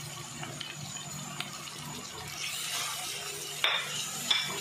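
Oil sizzling in a metal pot as spices and chopped tomatoes fry, then a wooden spoon stirring, knocking sharply against the pot twice near the end.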